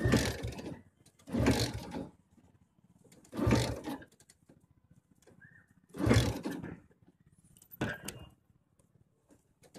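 Royal Indian 100cc motorcycle engine being turned over in repeated attempts to start it: five short bursts of under a second each, a few seconds apart, with the engine not catching in between.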